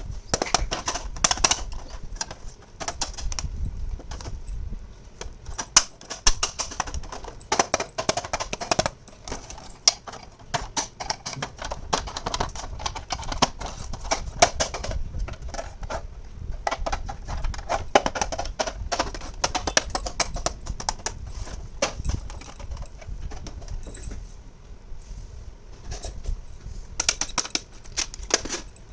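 Small hard plastic toy pieces being handled, tapped and set down: many quick, irregular clicks and taps.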